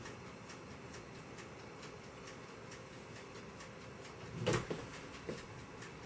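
Mini fridge door swinging shut with a single thump about four and a half seconds in, followed by a softer knock, over a faint regular ticking.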